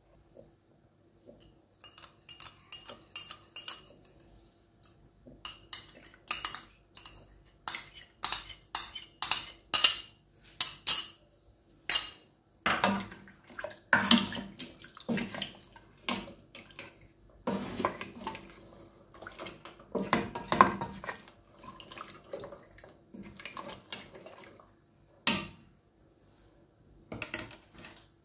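A ladle knocking and scraping against the side of a metal pressure cooker as it stirs a watery broth of lamb trotters, with the liquid sloshing. Quick runs of sharp clinks, about two a second, give way halfway through to rougher stirring and splashing, with a single sharp knock near the end.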